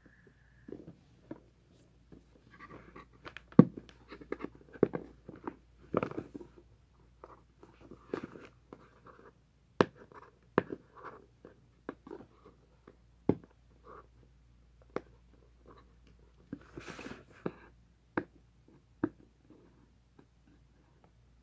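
Fingers handling a cardboard smartphone retail box: scattered sharp taps and clicks with scratching as the box is turned over and its seal sticker picked at, and a longer rustle about three-quarters of the way through.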